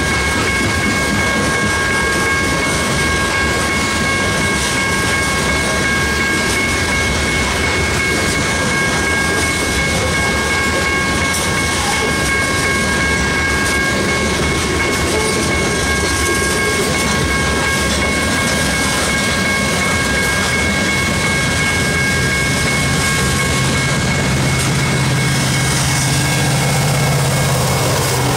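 Loaded coal hopper cars rolling past, a loud steady rumble and clatter of steel wheels on rail, with a few steady high-pitched tones over it that fade out past the middle. Near the end the low hum of an EMD SD70ACe distributed-power locomotive's diesel engine builds as it arrives.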